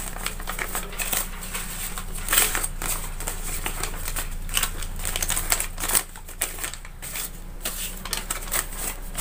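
Crumpled paper banknotes rustling and crinkling as hands pick up, flatten and sort them, a quick run of crisp rustles that goes on throughout.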